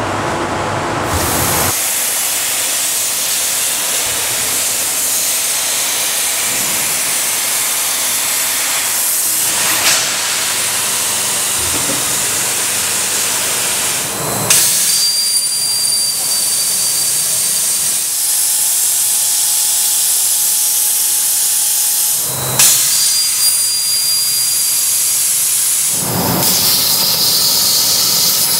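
Loud steady hiss of a CNC cutting machine's torch cutting steel plate, in several cut-together shots that change abruptly about 10, 15, 22 and 26 seconds in, some carrying a thin high whistle over the hiss. The last shot is an ESAB plasma torch cutting. The hiss begins about two seconds in, after a quieter machine hum with steady tones.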